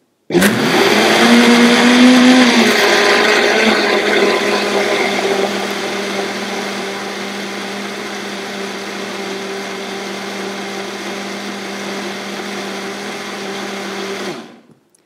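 Countertop blender running, blending a thick cake batter of oats, bananas and eggs. It starts abruptly, is loudest for the first couple of seconds while its pitch shifts, then settles to a steady, somewhat quieter drone and switches off near the end.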